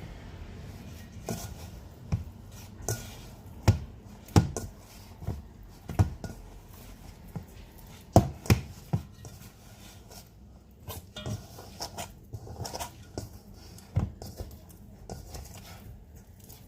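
Hands mixing sticky sourdough dough of flour, water, salt and starter in a bowl, with irregular knocks and thuds as the bowl is worked, the loudest clustered a few seconds in and again about eight seconds in.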